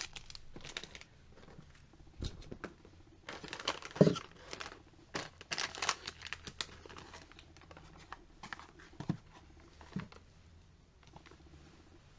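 Plastic packaging crinkling and product boxes and bottles being handled and set down on a table, in scattered rustles and clicks. The busiest stretch is in the middle, with a dull thump about four seconds in and a couple of lighter knocks later.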